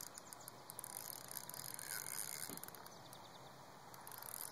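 Fishing reel being cranked, a faint fine ticking as line is wound in.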